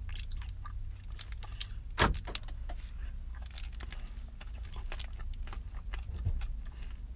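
A foil candy wrapper crinkling in the hand, a stream of small crackles with one sharper crackle about two seconds in, over the steady low hum of the car.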